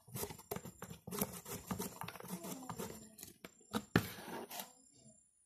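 Stiff white card being handled and folded by hand: a busy run of rustling, scraping and clicking paper, with a sharper snap about four seconds in, dying away near the end.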